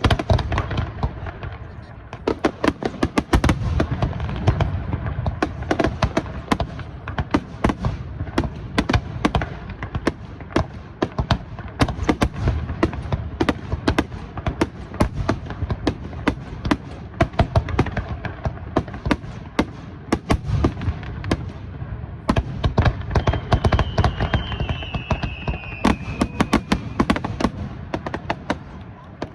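Fireworks display: dense, continuous crackling and rapid popping of many bursting shells, with deep booms rising and falling underneath. Near the end a short falling whistle.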